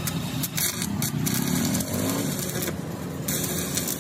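Factory machinery noise: a steady rough mechanical rumble with a hiss that cuts in and out several times.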